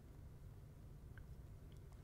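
Near silence: a faint steady low hum, with a few faint ticks just past the middle.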